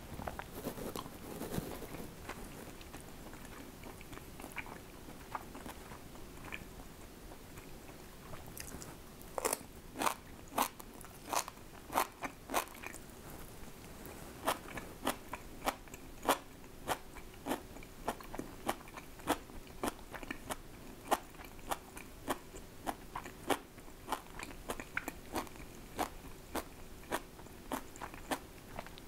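A person chewing crunchy food close to the microphone: quiet chewing at first, then from about ten seconds in a crisp crunch every half second or so.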